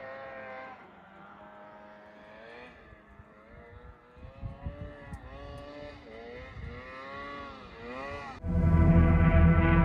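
Distant snowmobile engine revving up and down again and again. About eight and a half seconds in, loud music cuts in suddenly.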